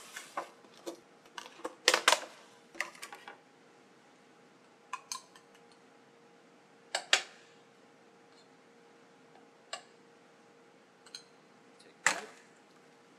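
Kitchen handling clatter: a cluster of clicks and knocks as a plastic lidded container of food is handled and set down on a steel counter, then a few separate clinks of a metal spoon against a small ceramic bowl and plate while sauce is spooned out. The loudest clinks come about two, seven and twelve seconds in.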